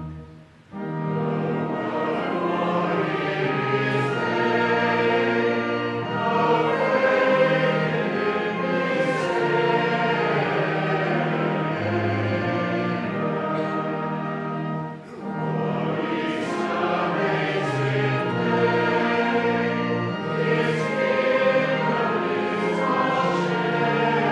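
Choir singing a hymn, with two short breaks between phrases: one about half a second in and one about two-thirds of the way through.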